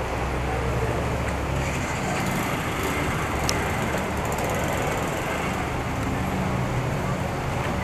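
Steady city street noise: a low traffic rumble under the even hiss of rain falling on wet pavement.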